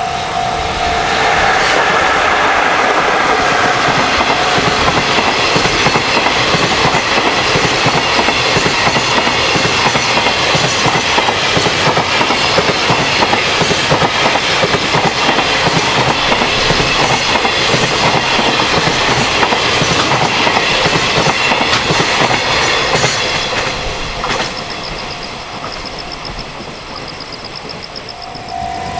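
A freight train passing close by at speed, its wagons' wheels clattering over the rail joints for about twenty seconds, then the sound dies away as the train moves off near the end.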